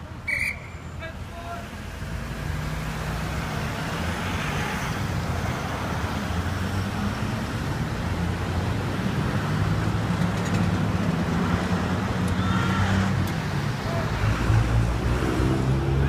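Cars driving through an intersection close by, their engines and tyres making a steady traffic rumble that builds from about two seconds in. A short high chirp sounds just after the start.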